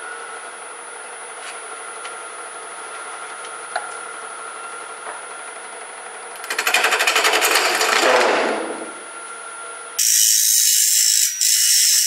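Grizzly wood lathe running steadily with a spinning segmented bowl blank. About six seconds in, a turning tool bites into the blank with a loud rattling cut that fades after a couple of seconds, and near the end a second loud, hissing cut starts as shavings fly.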